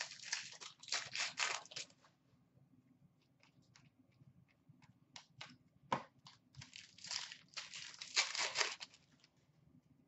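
Foil wrappers of Upper Deck Series 1 hockey card packs crinkling and tearing as they are ripped open by hand, in two bursts, with a sharp tap about six seconds in.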